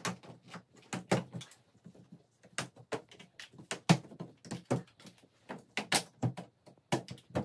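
Quick-release clip latches on a wooden shipping crate being unfastened by hand: a string of irregular sharp clicks and knocks, with a few louder snaps among them.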